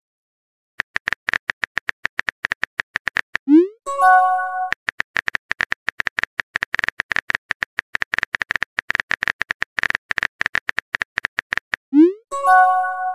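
Rapid keyboard-tap click sounds from a texting-story animation as a message is typed out. Twice, about four seconds in and near the end, the clicks give way to a short rising swoop and a bright multi-tone chime as a message bubble is sent.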